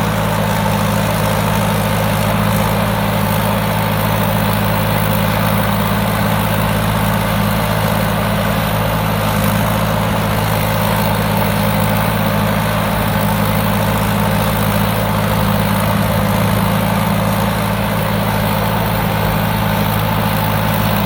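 Four-cylinder turbo engine of a 6-ton Thai Seng 'Super Jiw' rice combine harvester running steadily at an even pitch.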